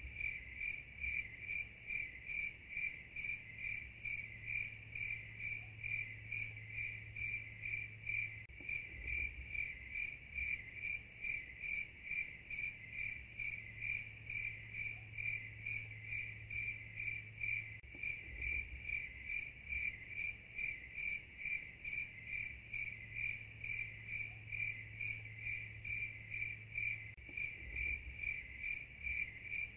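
Insect chirping, cricket-like: an unbroken run of even, high-pitched chirps, a few a second, with a faint low hum beneath.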